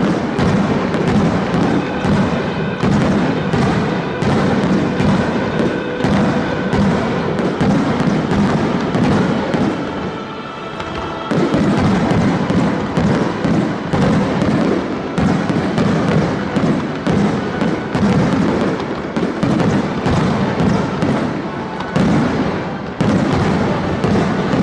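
Aerial fireworks bursting in rapid succession, many booms and crackles overlapping, over music played for the show. There is a short lull about ten seconds in, then the bursts resume.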